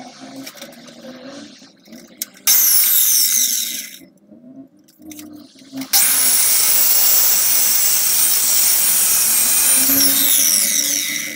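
Angle grinder cutting into a concrete block wall: a short cut of about a second and a half, then a longer cut of about five seconds, its whine falling as it winds down near the end.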